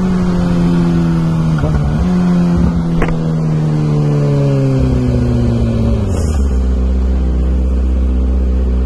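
Kawasaki ZX6R's inline-four engine, its exhaust baffle removed, with its note falling steadily as the bike slows. There is a brief dip and rise about two seconds in, and it settles into a steady low idle about six seconds in.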